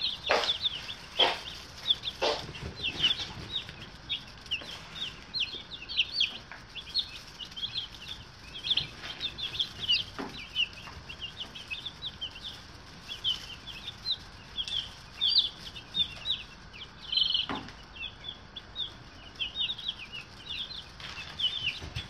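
A brood of day-old broiler chicks peeping continuously, a dense chorus of many short, high peeps overlapping one another. A few soft knocks sound now and then.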